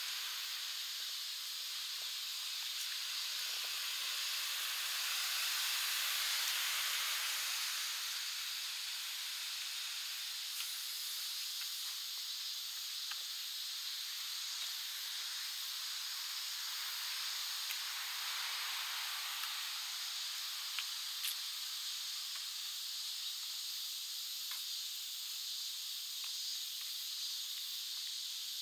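A chorus of cicadas in the park trees: a steady, high-pitched shrill drone that swells for a few seconds about five seconds in, then settles.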